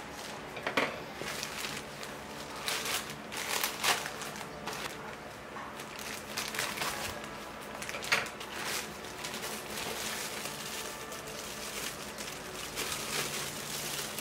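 Plastic packaging crinkling and rustling as it is handled and pulled open, with irregular sharp crackles that come and go.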